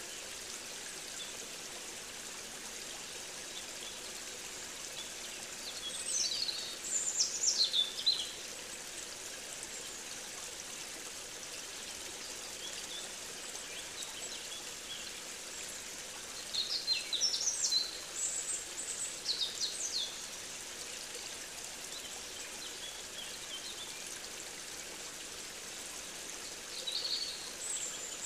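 Outdoor nature recording: songbirds singing in quick, high phrases three times, over a steady background rush.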